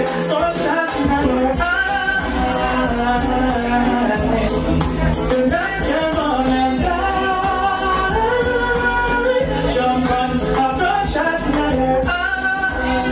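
Dancehall music played loud over a party sound system, with a sung vocal over a steady beat and heavy bass.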